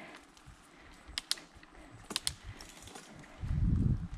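Scattered sharp ticks of raindrops striking the handlebar-mounted camera, a couple of them in quick pairs, over faint riding noise; near the end a short low rumble of wind buffeting the microphone.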